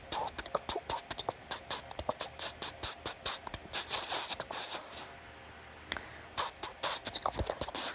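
A person making weird noises: a rapid run of clicks and pops, a stretch of hissing about halfway through, then more clicks after a short lull, with one low thump near the end.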